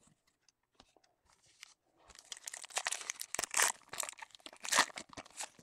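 A plastic trading-card pack wrapper being torn open and crinkled: a few faint taps, then from about two seconds in a dense crackling, loudest in two peaks, that stops near the end.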